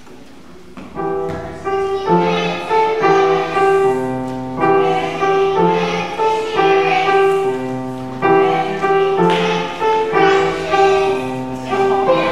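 Upright piano playing a tune in chords at a steady pace, starting about a second in.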